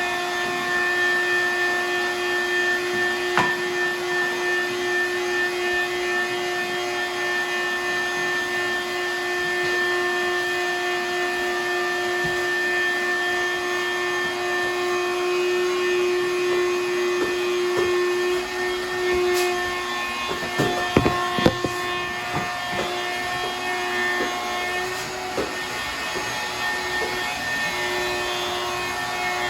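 A steady mechanical hum made of several fixed tones, with a cluster of sharp knocks a little past two-thirds of the way through.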